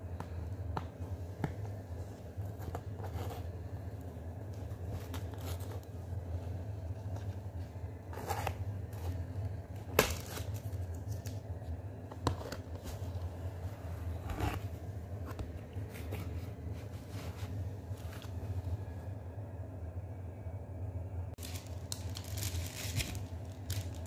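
Hands tapping, rubbing and scraping on the lid of a cardboard pizza box: scattered taps, with one sharp knock about ten seconds in. Near the end the cardboard rustles as the box is opened. A steady low hum runs underneath.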